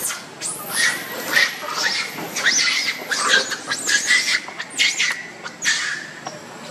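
Young long-tailed macaque screaming in distress as it is chased: a rapid run of shrill, arching cries that die away about six seconds in.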